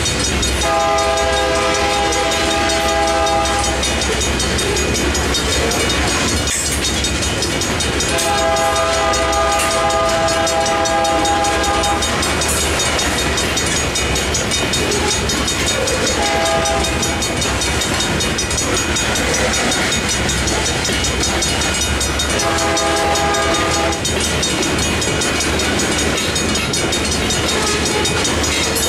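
Freight train of open-top hopper cars rolling past with steady wheel-on-rail clatter. A distant locomotive horn sounds over it in the long-long-short-long pattern of a grade-crossing warning.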